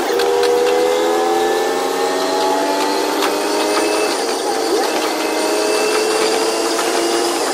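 KiHa 122 series diesel railcar's engine running under power, its note rising steadily in several overlapping tones as the train picks up speed, with light clicks throughout.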